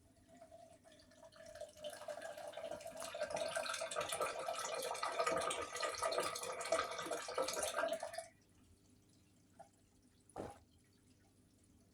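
Hotpoint Aquarius washing machine taking in water: a rushing flow with a steady whine that builds over the first two seconds and cuts off sharply about eight seconds in. A single short knock follows near the end.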